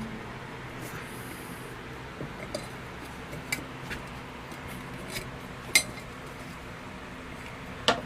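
A few scattered light metallic clinks and taps from tools working a tiller tire off its wheel rim.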